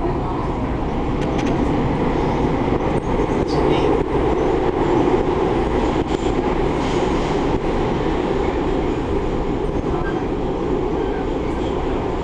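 MARTA rapid-transit rail car running at speed, heard from inside the car: a steady rumble of wheels on track.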